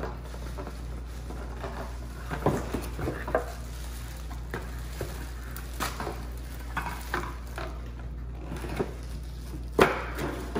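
Cardboard packing insert and plastic wrapping being handled while unpacking a kitchen appliance: irregular rustling, crinkling and light knocks, with one sharper knock near the end.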